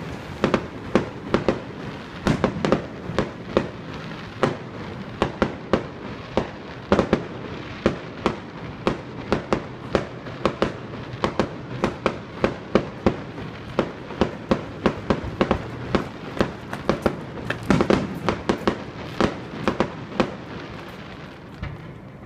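Fireworks show: a dense, steady barrage of sharp bangs, two or three a second, over a constant crackle and rumble, echoing off surrounding buildings; the barrage eases off near the end.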